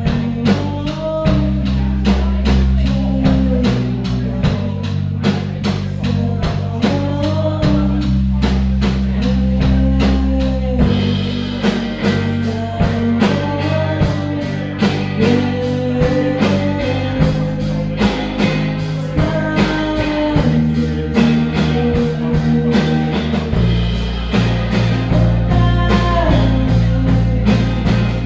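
Live rock band playing: two electric guitars, bass guitar and a drum kit keeping a steady beat, with a woman singing. The band gets brighter and fuller about twelve seconds in.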